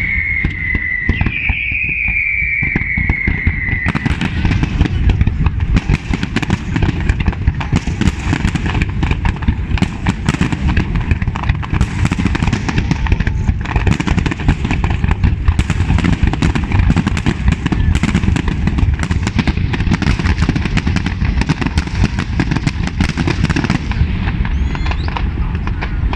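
Aerial fireworks display: a falling whistle over the first few seconds, then from about four seconds in a dense, continuous barrage of shell bursts and crackle with a low rumble underneath.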